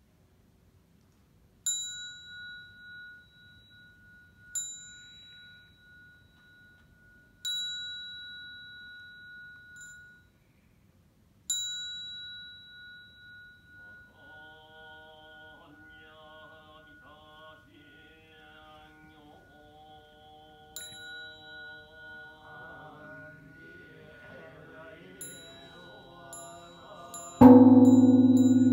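A small high-pitched bell is struck four times, each stroke ringing out, and monks then begin chanting a Buddhist sutra. Near the end Kenchō-ji's great bronze temple bell (bonshō) is struck once, the loudest sound, with a deep ring that carries on: the first toll of the New Year's Eve bell ringing (joya no kane).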